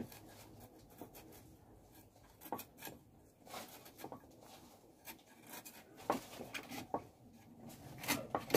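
A guava being sliced against the upright blade of a bonti, a floor-mounted curved kitchen blade: soft, irregular scraping and crunching cuts, with a few sharper strokes in the last few seconds.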